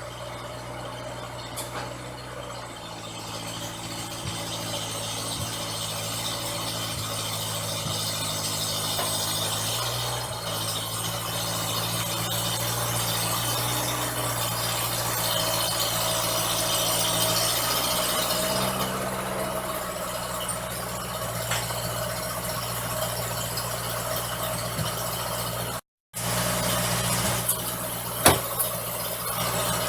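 An engine running steadily, its speed stepping up and down several times as a vehicle is driven and manoeuvred. There is a brief cut-out about 26 seconds in and a sharp knock near the end.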